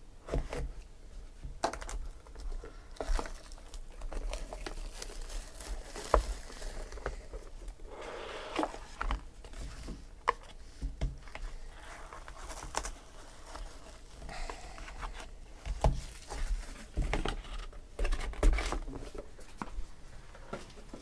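Plastic shrink wrap being slit with a utility knife and crinkled off a cardboard box of trading cards, then the box opened and cards in hard plastic holders handled and set down. Irregular crinkling and tearing with light clicks and taps.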